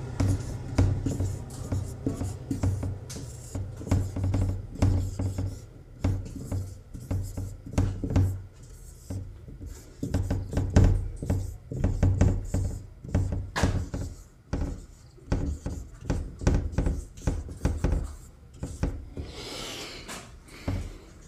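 Marker writing on a whiteboard: irregular bursts of squeaking and rubbing strokes with short pauses between words.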